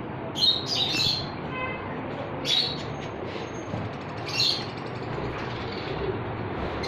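Pet birds chirping: a few short, high chirps spaced a second or two apart over a steady low background hum.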